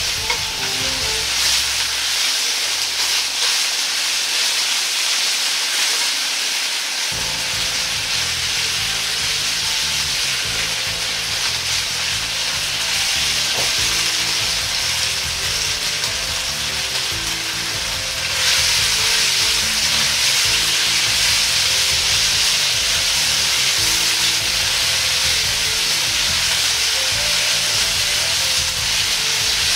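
Sliced beef frying in oil in a wok over medium heat: a steady sizzle as the meat is spread and turned with chopsticks, growing louder about eighteen seconds in.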